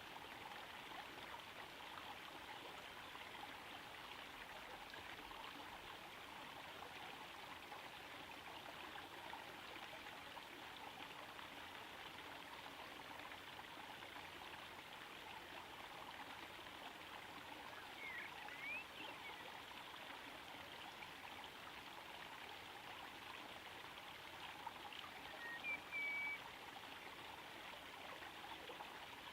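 Small garden pond waterfall trickling steadily into the pond. A few brief high chirps cut in about two-thirds of the way through and again near the end.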